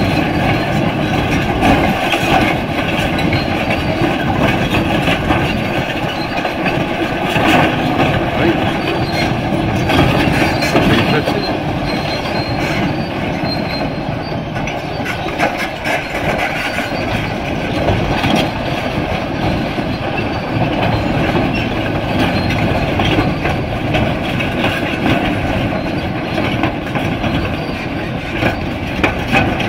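Kobelco SK500LC crawler excavator travelling, its steel tracks clanking and squealing over its running engine.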